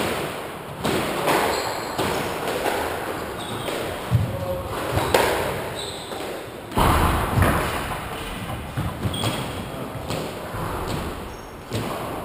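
Squash ball struck by rackets and hitting the court walls and floor: a series of sharp thuds at irregular intervals, each ringing in the enclosed court.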